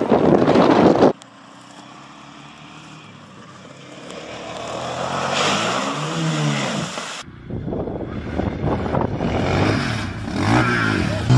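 Off-road vehicle engines revving hard while driving through sand and water, heard in three separate clips. A loud engine cuts off about a second in. A quieter one then swells and revs up and down. It stops abruptly past the halfway point, and another engine revs up and down near the end.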